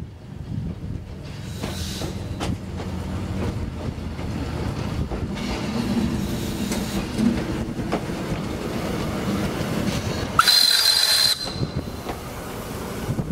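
SMC1 'Coffee Pot' steam railcar approaching and passing close by, its running and the wheels on the rails building to a steady rumble with scattered clicks. About ten seconds in there is a short, loud, high whistle blast lasting about a second.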